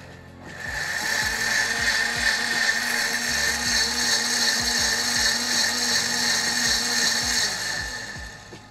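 KitchenAid Artisan K400 blender running its pre-programmed cycle on warm water and washing-up liquid in its glass jug, a self-clean. It starts up just after a short pause, runs steadily with a constant whine, and winds down near the end.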